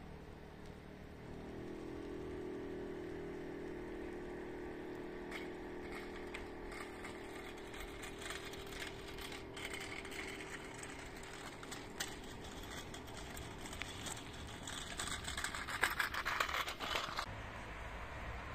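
Bicycles and a kick scooter rolling past over asphalt, with the rapid ticking of a bicycle freewheel that grows denser and louder near the end, then cuts off suddenly. A steady low hum lies underneath in the first half.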